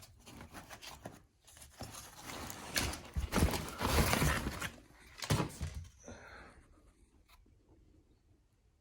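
Handling of a used headlight unit and its packing: rustling, scraping and a series of knocks, busiest and loudest in the middle, then dying away near the end.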